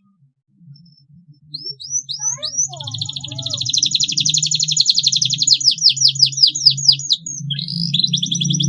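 Domestic canary singing: a few rising chirps, then a long, rapid trill lasting several seconds. After a brief break, another trill starts near the end.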